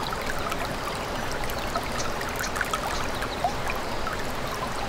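A stream running and trickling steadily, with many small high ticks and plinks over it.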